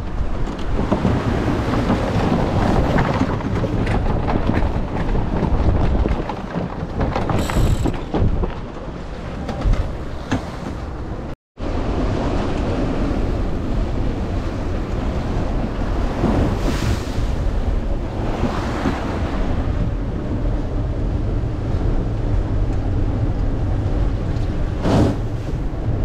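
Strong wind buffeting the microphone over the steady rush of waves along a small sailboat's hull as it sails upwind in rough seas, with a few brief splashes of spray. The sound cuts out for an instant about halfway through.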